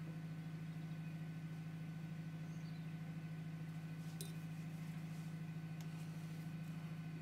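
A steady low hum with two faint clicks, the first about four seconds in and a second near six seconds.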